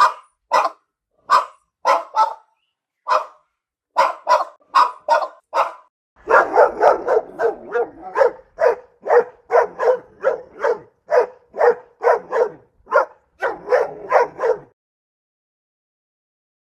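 Dog barking repeatedly: separate barks with short gaps at first, then from about six seconds in a quicker run of about two barks a second over a low rumble, stopping about two seconds before the end.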